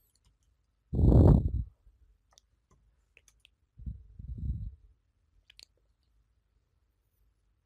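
Four light computer keyboard taps in quick succession as a short code is typed, then a single mouse click. Two louder, low, muffled sounds of unclear origin come about a second in and about four seconds in.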